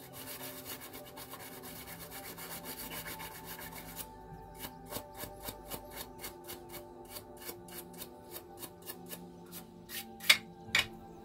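Toothbrush bristles scrubbing a printed circuit board: quick continuous scrubbing for the first four seconds, then separate back-and-forth strokes about three a second. Two sharp knocks come about a second before the end.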